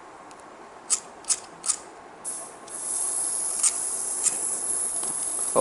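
Butane soldering iron being lit: three sharp igniter clicks about a second in, then butane gas hissing steadily from about three seconds on, with two more clicks over the hiss.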